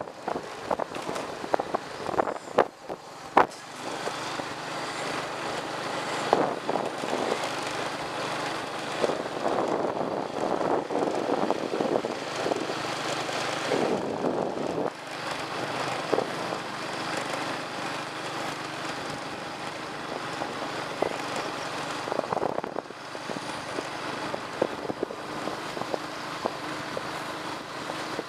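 Bike ridden along a rough concrete lane: rattling knocks, thickest in the first few seconds, over a steady rushing noise of tyres and moving air.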